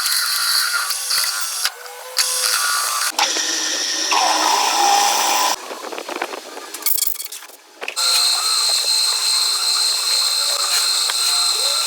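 Metalworking machine tool cutting, a steady high whine over a noisy hiss, with several abrupt changes in sound as the shots change.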